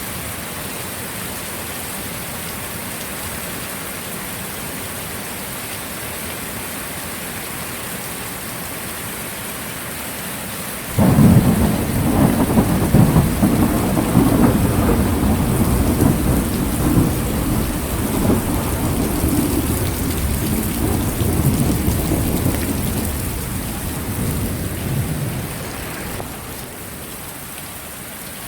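Heavy rain falling steadily. About eleven seconds in, a loud rumble of thunder breaks in suddenly and rolls on for over ten seconds before fading away.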